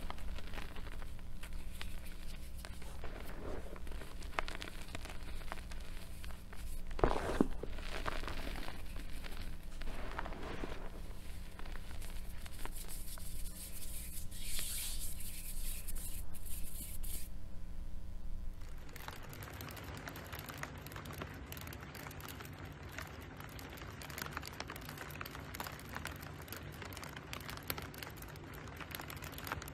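Bare hands squeezing and rubbing soft, powdery reformed gym chalk: soft irregular crunching and scraping, loudest about seven seconds in. About nineteen seconds in it gives way to a fainter, even crackle.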